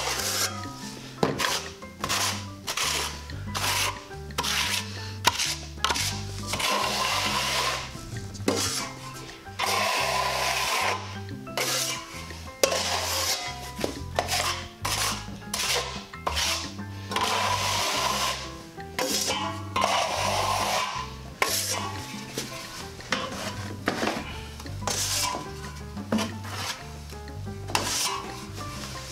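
A steel taping knife scrapes joint compound across a wall patch and off a hawk, in repeated strokes about a second long. Background music with a bass line plays underneath.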